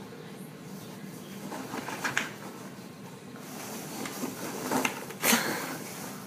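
Foam packing peanuts rustling and shifting in a cardboard box as a small animal burrows and thrashes through them, with a louder burst of rustling about five seconds in.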